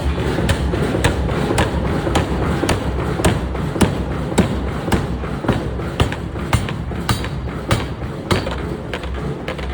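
Pneumatic air forging hammer striking hot steel over and over, about two blows a second, over a steady low rumble.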